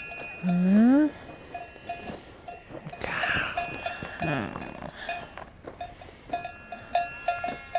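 Livestock bells clinking on and off as Valais Blacknose sheep move while grazing, with a sheep bleating once about half a second in, its call rising in pitch.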